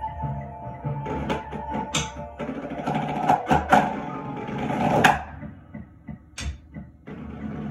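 Snare drum played with sticks in a drumline-style passage: quick strokes build into a dense roll with loud accents in the middle, then thin out to scattered quieter taps with a brief gap near the end.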